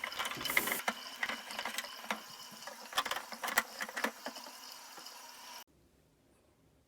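Water running into the plastic water tank of an ultrasonic humidifier, with scattered clicks and knocks of the plastic being handled. It cuts off suddenly about five and a half seconds in.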